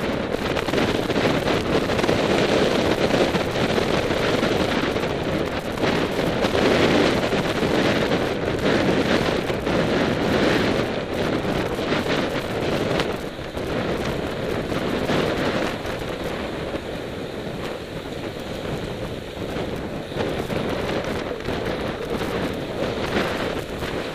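Wind buffeting the microphone of a camera riding on a moving road bicycle, mixed with road and tyre noise: a steady, dense rush with frequent small crackles.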